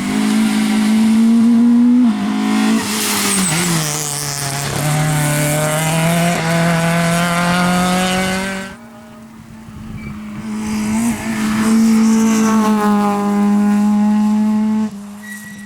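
Rally car engines running at high revs. The pitch steps as the driver shifts gears and lifts off. The first car's sound stops abruptly about nine seconds in, and a second car's engine then builds up to full revs.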